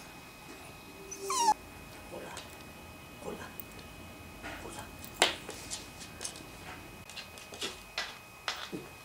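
A dog gives one short whine that sweeps upward in pitch about a second in, followed by scattered sharp clicks and taps.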